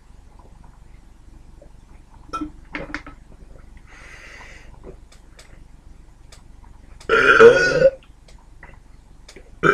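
A man's loud burp about seven seconds in, lasting under a second, after gulping down a can of energy drink. A few light clicks and a soft breath come before it.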